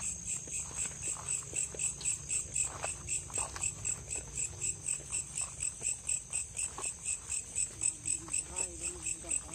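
A cricket chirping in a steady, even rhythm, several chirps a second. Faint low voices come in near the end.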